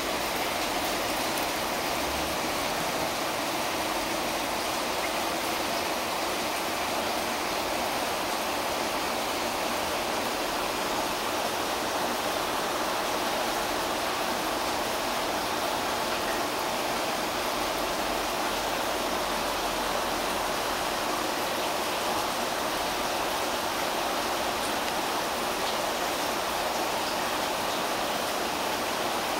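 Steady rush of running water in an aquarium system, even and unchanging.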